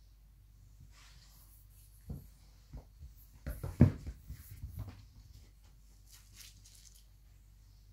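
Two cocker spaniels play fighting. Their bodies and paws scuffle and thump on a wooden floor in a cluster of short knocks from about two to five seconds in, the loudest near the middle.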